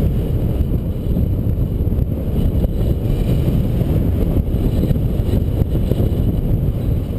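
Wind rushing over the microphone of a paraglider pilot's camera in flight: a loud, steady low rumble that buffets without letting up.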